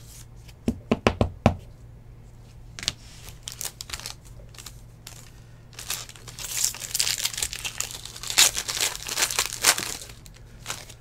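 A quick run of sharp plastic clicks and taps about a second in, then several seconds of crinkling and tearing as a clear plastic wrapper is pulled off a stack of trading cards.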